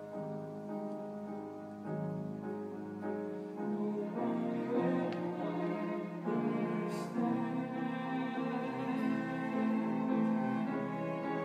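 Live band of piano, violin and cello playing an instrumental passage of the song's accompaniment, with sustained string notes over piano chords that swell louder a few seconds in.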